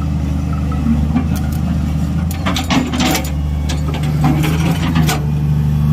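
Excavator diesel engine running steadily with a low drone, with a cluster of sharp metallic clanks and knocks about halfway through and another knock near the end.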